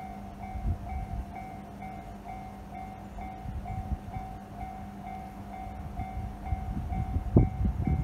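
Japanese railway level-crossing alarm ringing its electronic bell, a short ding repeated about twice a second: the crossing is closed with the red lights flashing and barriers down, warning of an approaching train. An irregular low rumble grows louder under it near the end, with a sharp thump about seven seconds in.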